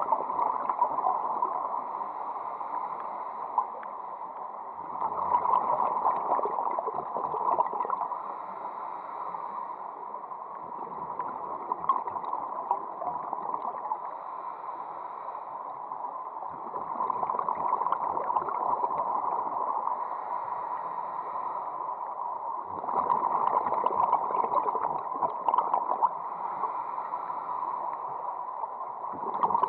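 Muffled underwater bubbling and water rush heard through a camera's underwater housing, swelling louder in waves about every six seconds.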